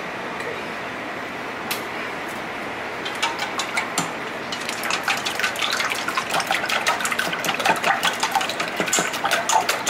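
Four raw eggs being beaten by hand in a stainless steel bowl. The utensil makes a rapid run of light clicks against the bowl, and the egg sloshes. It starts about three seconds in and gets busier and louder toward the end.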